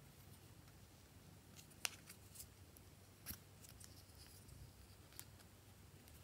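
Near silence broken by a few small sharp clicks from handling a small plastic tube and its cap and a thin metal tool dipping into it; the loudest click comes about two seconds in, with softer ones later.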